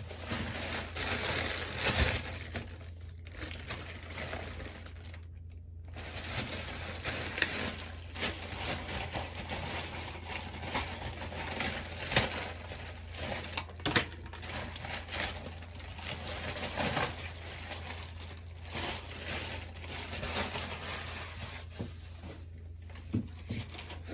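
Packaging being handled and opened: plastic and cardboard crinkling and rustling in irregular stretches, with scattered clicks and knocks and a few short pauses.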